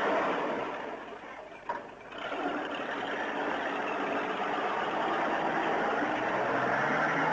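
Four-wheel-drive truck engine revving hard under load while the truck is stuck in deep mud. It eases off briefly about two seconds in, then climbs again and holds at high revs.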